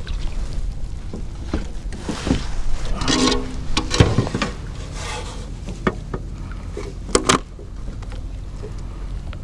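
Steady low wind rumble on the microphone, with scattered knocks, clicks and rubbing as a small bass is handled and pressed onto a plastic fish-measuring board in a kayak.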